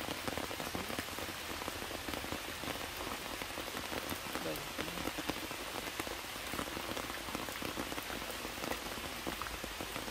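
Heavy rain falling steadily, with many single drops striking close by as short sharp ticks.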